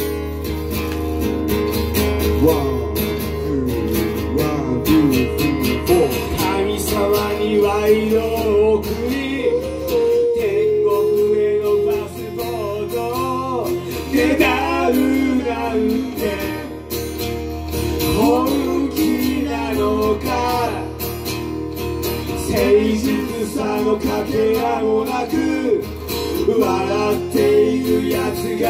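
Live acoustic rock song: a strummed acoustic guitar with male voices singing the melody over it.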